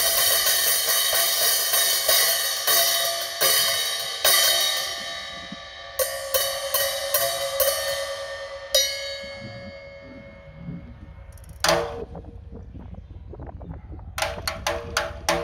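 Drum kit cymbals struck again and again, their ringing wash building up and then dying away about two-thirds of the way through. A single sharp hit follows, and near the end a quick run of sharp percussion hits starts.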